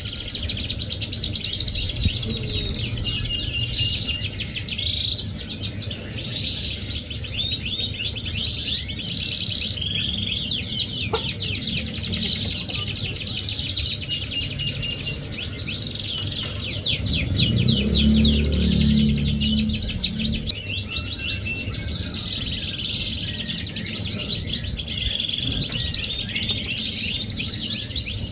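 Domestic canary singing a long, continuous song of rapid trills and warbling rolls, with short whistled notes in between. A low rumbling sound underneath swells for a few seconds past the middle.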